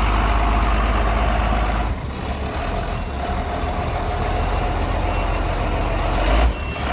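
Engine of a Ford medium-duty service truck idling steadily, a low rumble with a steady mid-pitched tone over it.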